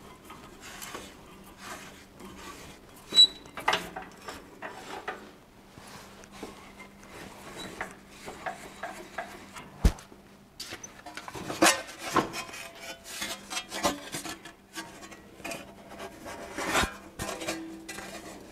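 Irregular clanks, knocks and scraping of sheet steel and hand tools as a bent panel is worked and freed from a bench bending fixture, with a couple of sharper knocks, the loudest about three seconds in. A faint steady hum runs underneath.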